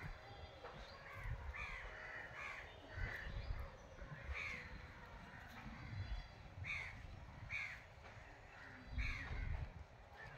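Crows cawing repeatedly, single caws and short runs of two or three, spaced irregularly, with dull low bumps in between.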